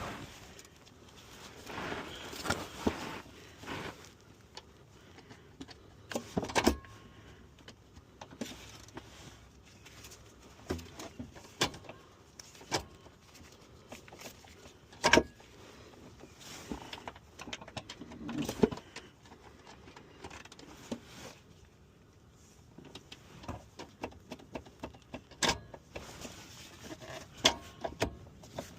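Scattered metallic clicks, clinks and knocks of hand tools and car parts being handled during work on the car's shifter assembly, with a few sharper knocks standing out.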